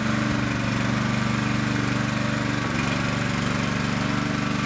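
Small engine of a motorized tracked wheelbarrow running steadily, with a fast, even pulse.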